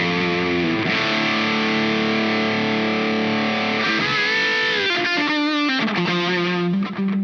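Electric guitar played through a Dazatronyx RAD, a RAT-style distortion pedal, with all its knobs at noon and a touch of delay. A distorted chord rings from about a second in for roughly three seconds, then gives way to moving single notes with a bend and more chord changes.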